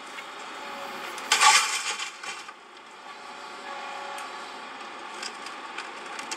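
A crash of breaking building material, a crunching burst lasting about a second, comes about a second and a half in over steady background noise. It is demolition of an old house with machinery, heard as the footage plays back.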